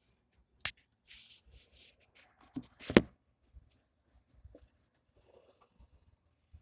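Hands working the throttle cable loose from a golf cart carburetor: rustling and small plastic and metal clicks, with one sharp click under a second in and a louder knock about three seconds in, then faint ticks.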